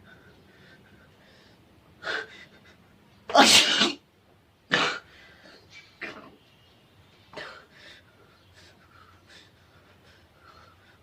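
A person sneezing several times in short, sharp bursts: one about two seconds in, the loudest and longest just after three seconds, more at about five and six seconds, and a weaker one near seven and a half seconds.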